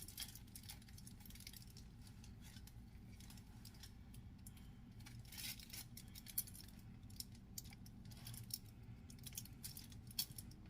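Faint, scattered light ticks and rustles of hands handling and twisting a seitan dough loaf, over a low steady hum.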